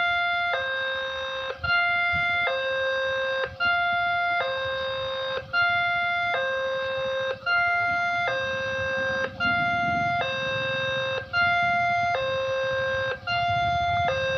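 Railway level-crossing warning siren sounding its electronic two-tone alarm: a buzzy tone switching back and forth between two pitches about once a second, with a short break every couple of seconds. A low rumble builds underneath from about nine seconds in.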